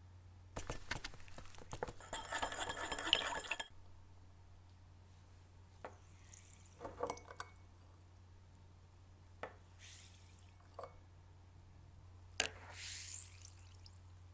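Metal parts clattering and clinking as they are handled and set down. A dense run of rattling and scraping in the first few seconds is followed by a handful of single clinks and knocks and a brief rubbing sound near the end, over a steady low hum.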